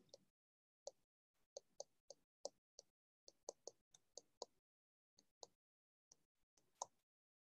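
Faint, irregular clicks and taps of a stylus on a tablet screen during handwriting, about fifteen over several seconds, with a short gap near the end.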